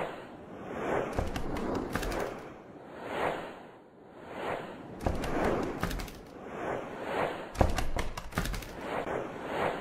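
Sound effects of an animated title sequence: a string of whooshes swelling and fading about once a second, with a few deep thuds, the loudest one near the end.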